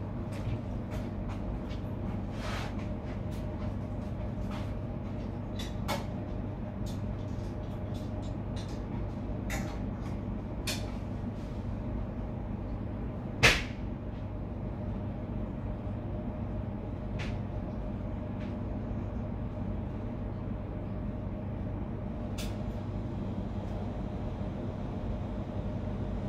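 Steady low hum of kitchen machinery, with scattered light clicks and knocks in the first half and one sharp knock about halfway through.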